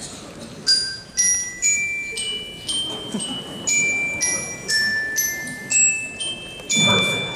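Glockenspiel playing a slow melody: about a dozen single struck notes, roughly two a second, each ringing on and overlapping the next. A short low thud comes in near the end.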